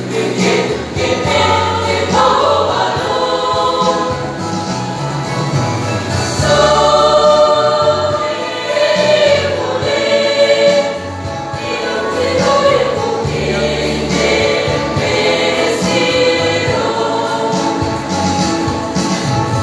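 Mixed choir singing in harmony, several voice parts together in sustained phrases, with a low bass line underneath.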